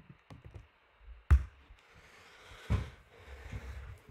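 Computer keyboard typing: a few light key clicks, then two heavier keystrokes about a second and a half apart, the first the loudest, followed by some softer taps.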